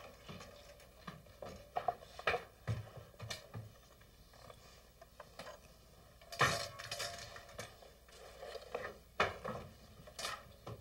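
Scattered knocks and metallic clanks from bakers weighing out dough on a hanging balance scale with metal pans. They are loudest in a cluster about six seconds in.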